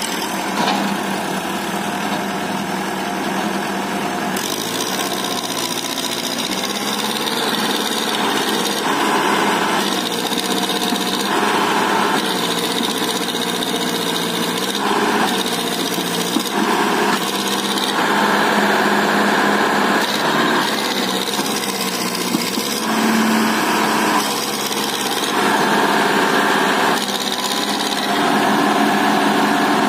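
Powertrac Euro 60 tractor's diesel engine working under heavy load as it drags a tree trunk through sand, its note swelling and easing every second or two.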